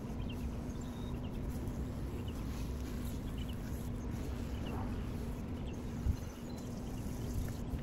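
Hose-fed spray wand applying wood cleaner to a wooden fence, over a steady low hum.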